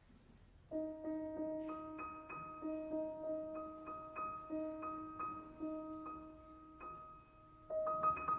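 Grand piano played quietly after a pause. The notes begin about a second in and are re-struck in an even pulse over held lower tones. The playing grows louder and busier near the end.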